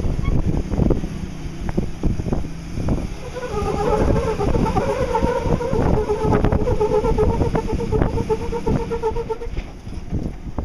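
Toyota FJ40 Land Cruiser crawling up slickrock: low engine rumble with wind buffeting the microphone. From about three and a half seconds in, a steady whine holds for about six seconds, then fades.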